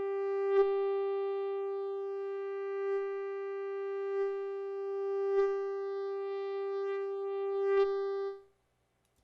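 Synthesized mosquito buzz from a Logic Pro X Quick Sampler note: one steady, unchanging pitch rich in overtones. It swells louder five times as it is panned around the head binaurally, and it cuts off about eight seconds in.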